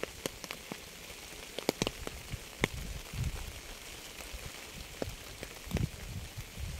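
Rain: a steady soft hiss with irregular sharp drips tapping on a nearby surface, and a few dull low thuds.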